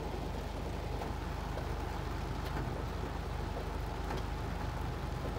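Steady low hum of a car's engine running, with a few faint taps of rain on the windshield.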